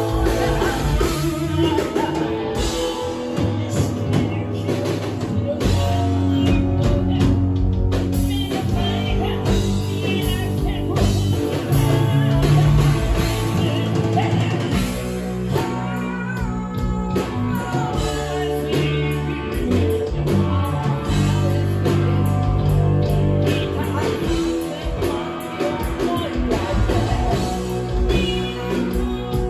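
Live rock band playing: a woman singing over electric guitar played through Marshall amplifiers, with a drum kit.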